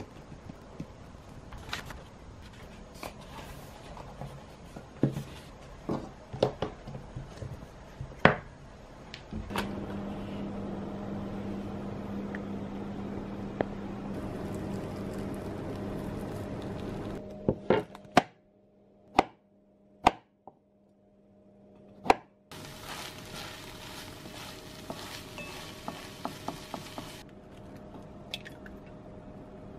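Home kitchen cooking sounds: scattered knocks and clicks of utensils and dishes, joined about nine seconds in by a steady hum. A few sharp clacks near the middle fall between brief silent gaps.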